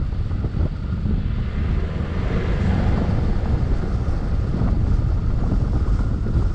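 Mazda CX-9 SUV driving through soft desert sand: a steady, heavy low rumble of engine and tyres mixed with wind buffeting the microphone, swelling briefly about two seconds in.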